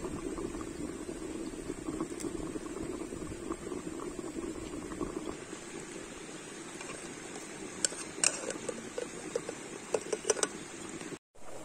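A pot of lamb stew bubbling at a boil over a cooking fire, fading somewhat after about five seconds. A few sharp clicks come in the second half, and the sound cuts out for a moment near the end.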